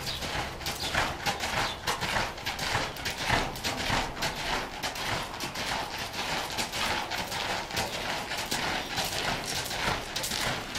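Hoofbeats of an American Quarter Horse mare loping on sand arena footing, a steady repeated beat of dull hoof strikes.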